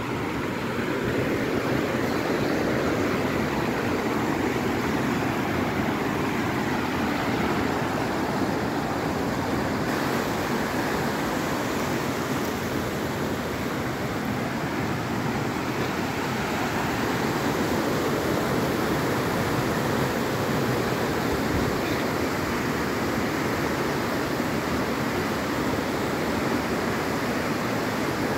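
Fast, shallow river rushing over rocks in whitewater, a steady unbroken rushing.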